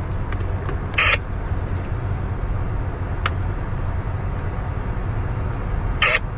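CSX freight train's cars rolling past with a steady low rumble. Two short, higher-pitched sounds cut in, one about a second in and one near the end.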